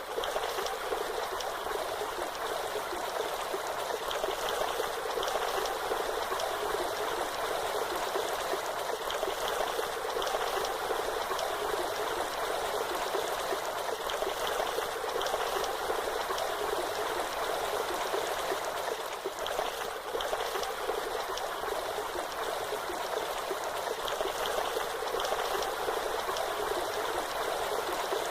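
Waterfall: a steady, even rush of falling water that does not change, with little deep rumble.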